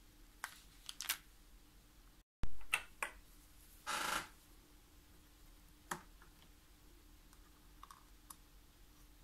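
Sharp, scattered clicks and taps of a watch and small metal tools being handled on a watchmaker's bench, with a short scraping sound about four seconds in.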